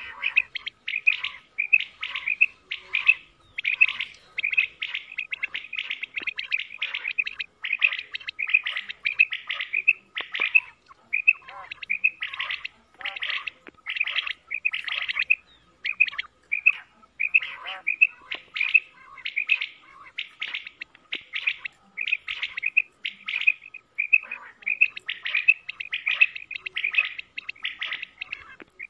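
Common quail calling: a continuous run of short, high, clipped notes in quick groups of two or three, repeated over and over with hardly a pause.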